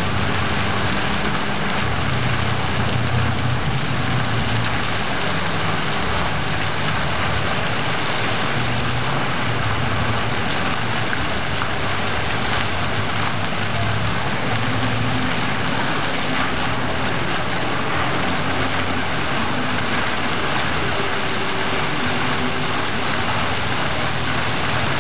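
Ground-level dancing fountain: many water jets shooting up and splashing down onto the wet pavement in a steady rush of falling water, with a low uneven rumble underneath.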